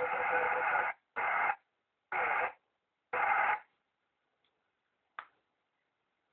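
Shortwave transceiver's external loudspeaker giving four short bursts of static, cut off sharply to silence between them as the squelch opens and closes, then a single click about five seconds in.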